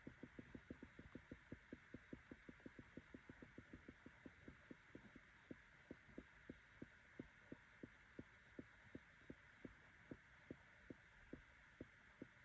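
Faint, distant logging-operation noise: a steady drone with a regular low thumping under it, about five thumps a second at first, slowing to about three a second about five seconds in.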